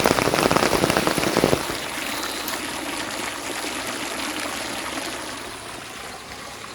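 Rain falling: dense, loud strikes of drops close by for about the first second and a half, then it changes suddenly to a softer, steady hiss of rain that fades slightly near the end.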